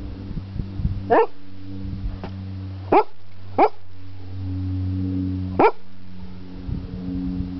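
Münsterländer dog barking impatiently: four sharp single barks spaced one to two seconds apart, over a low steady hum.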